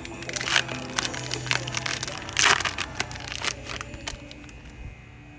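Foil wrapper of a trading-card pack crinkling and tearing as it is ripped open and the cards are slid out. The loudest crackle comes about two and a half seconds in, and it dies down after about four seconds.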